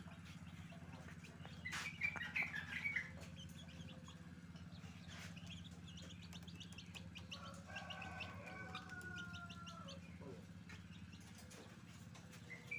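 Faint fowl calls: a quick cluster of short, high calls about two seconds in, then a longer drawn-out call with several tones, dropping slightly in pitch, around eight seconds in. A steady low hum runs underneath.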